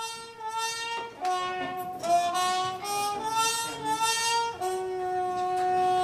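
Instrumental music, likely a violin, playing a melody in two parallel voices that climbs in short steps. About three-quarters of the way through it settles into one long held chord.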